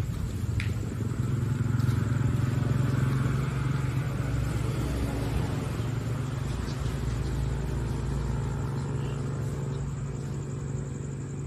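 A motor vehicle engine running, a steady low hum that swells in the first few seconds and then eases off.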